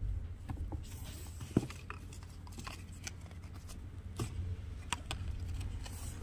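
Handling noise: scattered light taps and rustles as a mesh running shoe is turned and gripped by hand on its cardboard box, over a low rumble.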